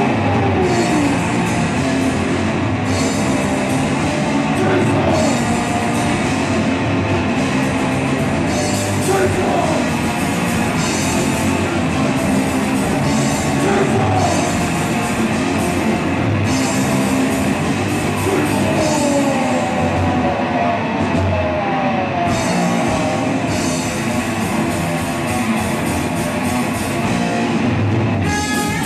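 Punk rock band playing live: distorted electric guitars and a drum kit, with a vocalist singing and shouting over them.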